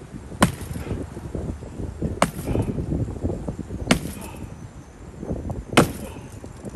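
A hatchet chopping down into a couch's wooden frame: four hard blows, about one every two seconds, each with a short ring after it.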